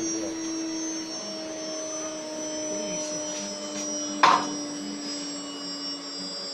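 CNC router running: a steady machine hum with several held tones, one of which steps to a new pitch about a second in. A single sharp click or knock sounds about four seconds in.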